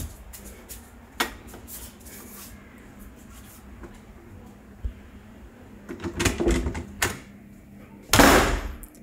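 Scattered clicks and knocks as someone moves through a small room. A dense cluster of them with faint muffled voices comes about six seconds in, then a loud rush of noise lasting under a second near the end.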